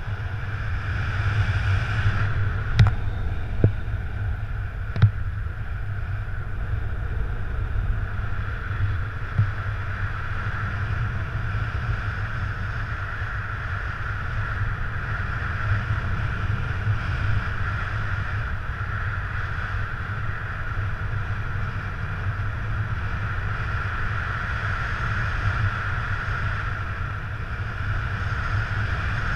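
Wind rushing over a camera microphone in paraglider flight: a steady low rumble with a steady hiss above it. A few short sharp clicks come in the first ten seconds.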